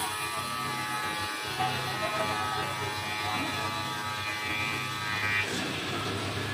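Three-blade CNC ceramic tile cutting machine's water-cooled saw blades running through a ceramic tile strip: a steady buzzing whine. Near the end the steady tones give way to a rougher noise.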